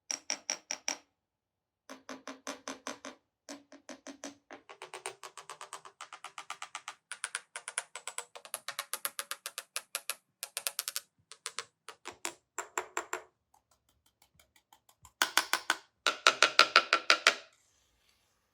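Glass marbles rolling down a wooden marble run, clacking over its wavy wooden tracks in quick runs of woody clicks, one run after another with short pauses, the loudest and densest run near the end.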